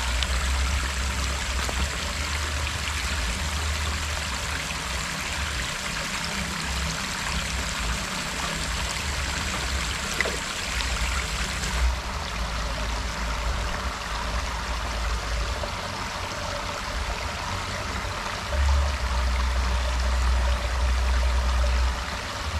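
Steady rush of running water in a shallow stream, with a low rumble coming and going underneath.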